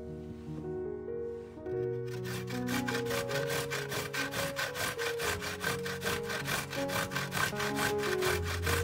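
A raw vegetable rubbed hard across a hand grater in quick, even scraping strokes, about four a second, starting about two seconds in. Background music plays throughout.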